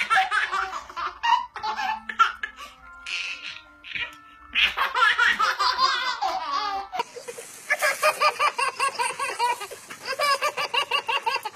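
Babies laughing: a baby's belly laughs and giggles, then, after a cut about seven seconds in, a toddler laughing in quick repeated bursts, about three or four a second.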